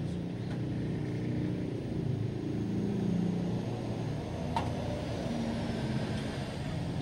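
Isuzu 4JA1 four-cylinder diesel engine running steadily with a low, even rumble.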